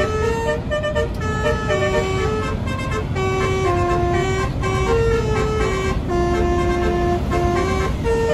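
Bus's multi-tone "telolet" (basuri) horn playing a tune of held notes that step up and down in pitch, one after another, over the bus's engine and road rumble, heard from inside the cabin.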